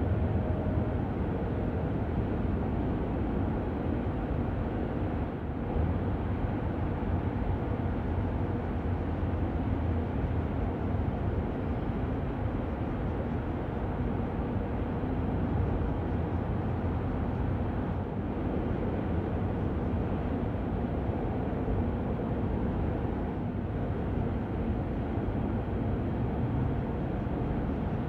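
Double-stack container freight train rumbling steadily as it rolls along the track, with the last of its horn fading in the first second.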